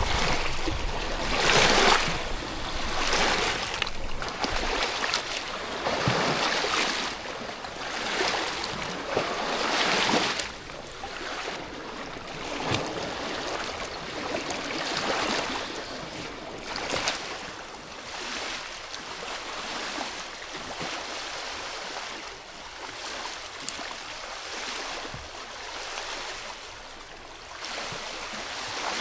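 Fast river water rushing and splashing, surging about every second and a half; the surges are stronger in the first ten seconds, then the rush settles steadier and a little quieter.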